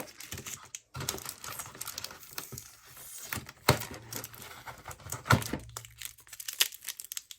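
Packaging crinkling and rustling as doll accessories are handled and unwrapped, with two sharp, louder clicks partway through.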